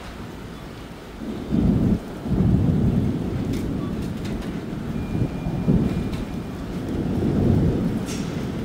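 Thunder rumbling: a long, low roll that builds about a second in, peaks with a loud crack-like swell, dips briefly, then keeps rolling in waves.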